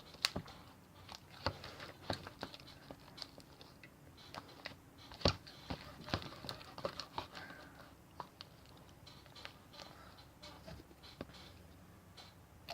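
Sticky homemade glue and contact-solution slime being kneaded and stretched by hand, giving irregular small clicks and wet pops, several a second. The slime is still sticky and not yet fully activated.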